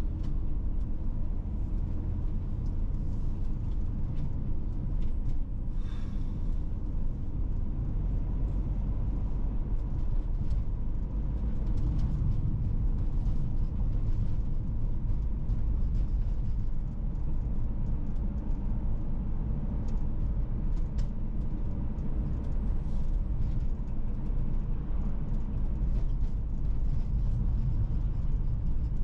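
Steady low rumble of a car driving, heard from inside the cabin: tyre and road noise with the engine underneath, plus a few faint ticks and knocks.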